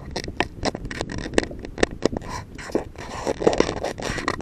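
Irregular scrapes and knocks, several a second, with some rustling: handling noise from an air rifle and its scope-mounted camera as the rifle is lowered and moved.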